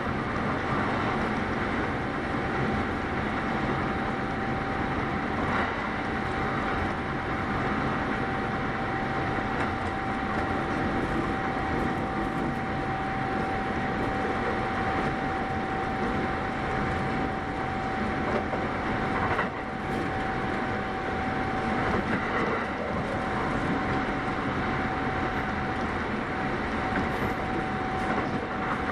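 Kintetsu 8810 series electric train running at speed, heard from inside the car: a steady rumble of wheels on track with a constant whine held at one pitch, and a brief dip in the noise about two-thirds of the way through.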